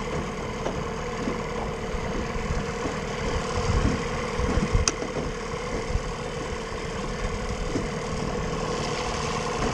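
Small Johnson 9.9 outboard motor running steadily at low speed, with a single sharp click about five seconds in.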